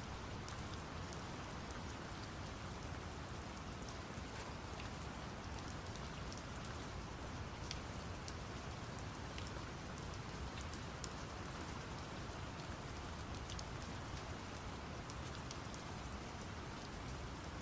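Steady rain with scattered drop ticks, layered over brown noise, a deep, even hiss heaviest in the low end. The level holds constant, with no breaks.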